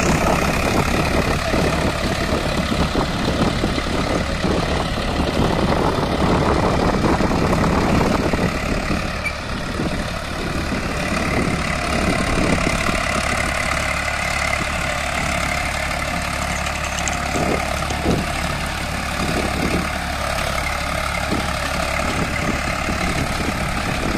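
Eicher 480 tractor's diesel engine running steadily while pulling a rotavator. The sound drops a little about ten seconds in as the tractor moves off.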